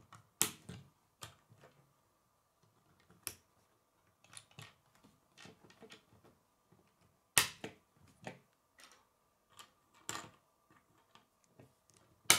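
K'nex plastic rods and connectors being handled and snapped together: a series of sharp plastic clicks at uneven intervals, the loudest about half a second in and about seven seconds in, with quieter clicks and handling between.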